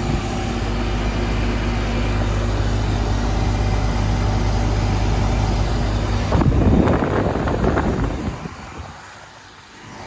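2002 Janitrol 2.5-ton central air conditioner condensing unit running: a steady compressor hum with a low drone under the rush of the condenser fan. A louder rough noise comes about six to eight seconds in, and then the unit's sound falls away near the end.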